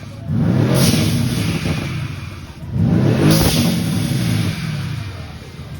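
Mercedes-AMG GT twin-turbo V8, a tuned and chipped car, revved twice in quick blips: each time the engine note climbs fast and then falls away as the revs drop back.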